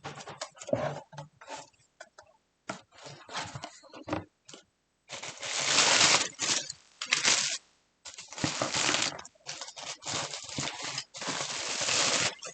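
Packaging being handled, with irregular rustling and crinkling that grows louder and longer about halfway through and again near the end.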